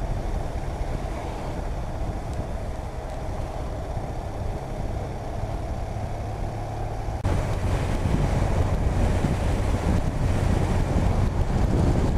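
Motorcycle riding: the engine running with steady wind noise on the microphone. About seven seconds in it cuts abruptly to a louder rush of wind and engine.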